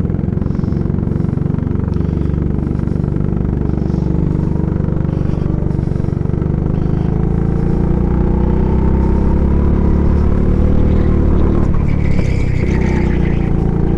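Go-kart engine running close and loud from the kart's own seat, its pitch rising gradually as the kart picks up speed.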